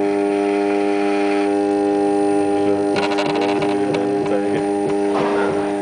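Steady machine hum made of several unchanging tones, with a short burst of rapid clicking about three seconds in.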